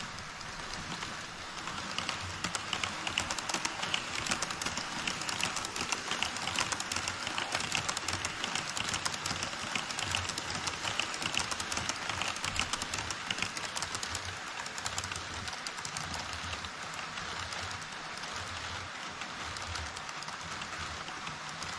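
HO-scale model trains rolling across a model truss bridge on KATO Unitrack: a steady clatter of small wheels on the rails with rapid clicking at the rail joints. It grows louder about two seconds in and eases somewhat after about fourteen seconds.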